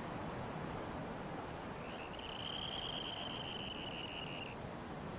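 Steady wind and surf on an Arctic tundra shoreline, with a single thin high bird call held for about two and a half seconds midway.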